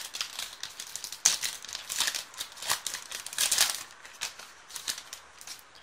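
Shiny foil wrapper of a Pokémon trading-card booster pack crinkling and crackling in irregular bursts as it is opened by hand, dying down after about four seconds.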